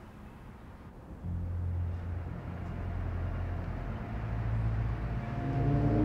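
A low, steady rumbling drone starts abruptly about a second in and slowly grows louder. Higher sustained tones join it near the end.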